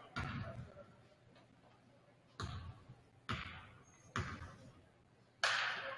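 Basketball bounced on a hardwood gym floor: four separate thumps with pauses between them, as a free-throw shooter dribbles before shooting. Near the end a louder burst of noise begins.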